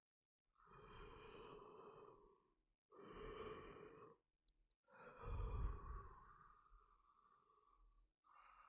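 A man breathing slowly and heavily, close to the microphone: three long breaths, the last a loud sighing breath that trails off gradually.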